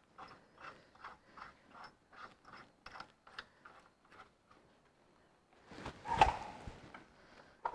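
Ratchet spanner clicking steadily, about four clicks a second, as a main bearing cap bolt is wound in; it stops about four and a half seconds in. About six seconds in comes a single loud knock with a short rattle: a clip-on microphone falling off.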